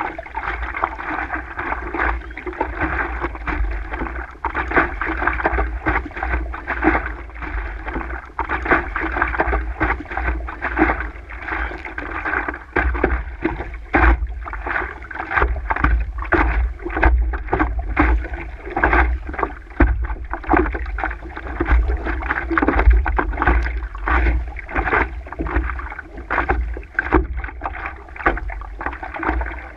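Choppy water splashing and lapping against a stand-up paddleboard as it is paddled, picked up close by a board-mounted camera, with many short slaps and a steady low rumble underneath.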